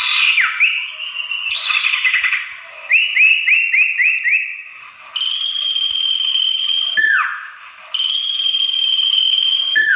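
Common iora (sirtu) lure-call recording. It opens with a quick chatter and short gliding notes, then a run of about five fast rising notes, then two long steady whistles, each ending in a sharp downward note.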